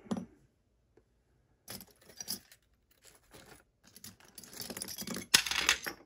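Small metal lock parts and hand tools clinking and rattling as they are handled on a workbench mat. A few scattered clicks come first, then a busier clatter with one sharp click about five seconds in.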